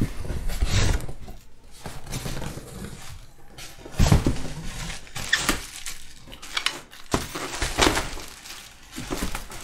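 Plastic packing wrap rustling and crinkling as it is pulled out of a cardboard box, in irregular handfuls. There is a dull thud about four seconds in and a sharp knock about seven seconds in as the box and its contents are handled.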